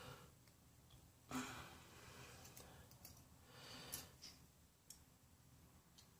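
Near silence, with a few faint breaths and small clicks from handling small parts.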